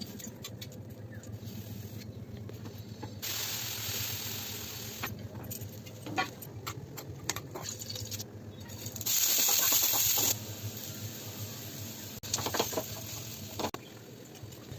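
Kitchen cooking sounds: scattered clinks and taps of utensils, with two long bursts of hissing, a shorter one about three seconds in and a louder one about nine seconds in.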